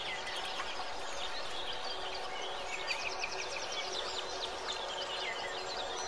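Forest ambience: several birds chirping and whistling, with rapid high trills about three seconds in and near the end, over a steady background hiss.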